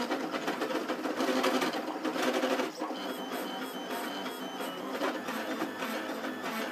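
Trinity Labs Aluminatus 3D printer's stepper motors driving its lead screws while printing, a continuous whirring of shifting motor tones. Between about three and five seconds in there is a run of short, high notes that step in pitch.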